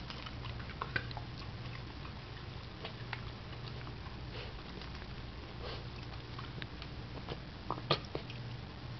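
Pembroke Welsh Corgi puppy sniffing and mouthing around, with scattered small clicks over a faint steady low hum. Near the end come a few sharper splashes and clicks as she pushes her nose into a steel water bowl after an ice cube.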